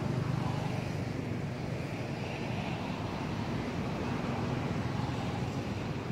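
Steady low rumble of motor traffic.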